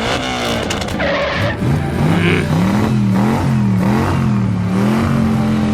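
Vehicle engine revving up and down, its pitch rising and falling several times before holding steady near the end.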